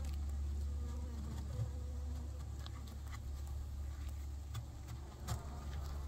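Honeybees buzzing around an open hive, a faint wavering drone, over a steady low rumble with a few scattered light clicks and taps.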